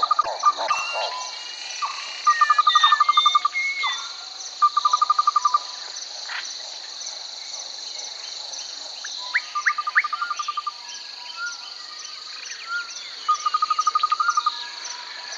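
Natural ambience: a steady high-pitched insect chorus runs throughout. Over it, calls repeat several times: rapid, even trills of about a second each, plus short rising whistles.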